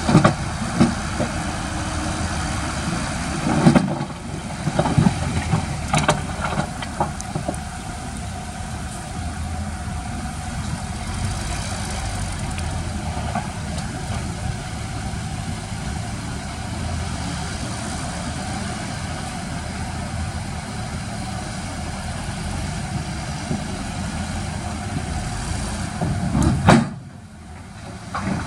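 Heavy construction machine's diesel engine running steadily, with several knocks in the first few seconds. The sound drops off suddenly near the end.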